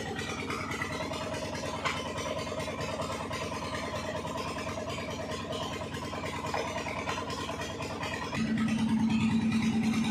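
An engine idling steadily, with a single sharp knock about two seconds in. Near the end a louder steady hum joins in.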